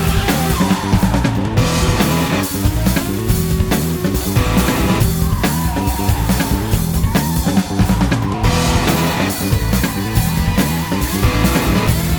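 Rock music soundtrack with electric guitar and a drum kit keeping a steady beat.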